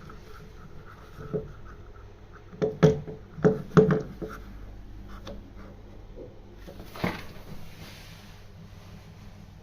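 Several sharp knocks in quick succession about three seconds in, with single knocks before and after, over a low steady hum.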